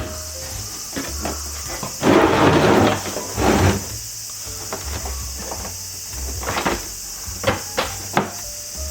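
Scattered knocks and taps of hand work, with a short rasping noise about two seconds in and another about three and a half seconds in, over a steady high insect chirring.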